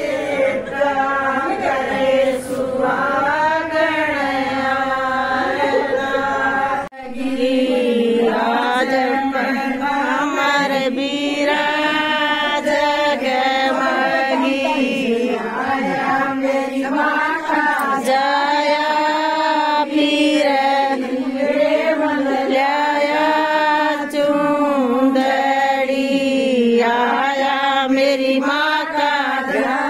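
A group of women singing a folk wedding song together in one drawn-out, slowly gliding melody, with no drum beat to be heard; it breaks off briefly about seven seconds in.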